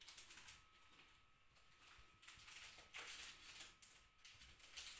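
Near silence: quiet room tone with a few faint soft knocks or rustles.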